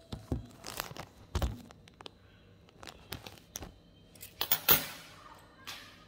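Handling noises close to the microphone: a string of short knocks and brief rustles as things are moved about on a glass tabletop and a wooden chair is gripped, the loudest rustle and knock cluster about four and a half seconds in.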